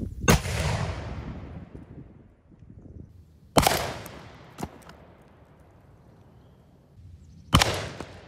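Black powder cannon firing a lead cannonball: three sudden booms, each ringing out and fading over a second or two. The second and third booms are each followed about a second later by a shorter, sharper crack as the ball smashes into the 2-inch oak planks.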